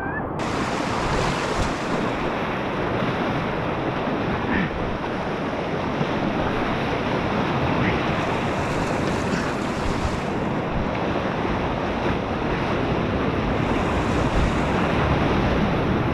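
Whitewater of a high-flow river rapid rushing close around a packraft: a steady, dense, unbroken noise.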